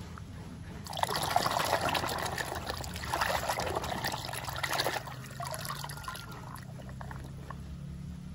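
Water splashing and sloshing as a hand swishes and scrubs a mud-caked toy car in a plastic tub of muddy water. It is busiest from about one second in to about five seconds, then gentler.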